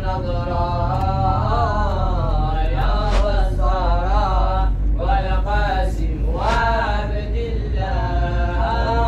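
Background music: a male voice chanting in long, wavering, ornamented lines over a steady low hum.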